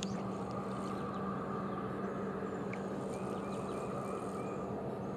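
Faint, evenly spaced light clicking from the propeller of a Heddon Tiny Torpedo topwater prop bait as it is retrieved across calm water, heard mostly in the second half. A steady low hum runs underneath and is the louder sound.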